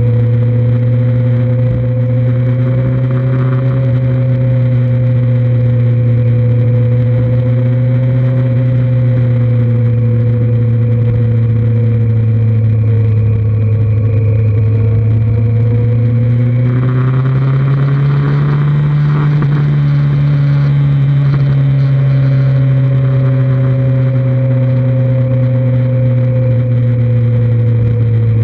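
2003 Kawasaki Z1000's inline-four engine running at a steady cruise, heard close up. Its pitch rises a little about seventeen seconds in and eases back down some seconds later.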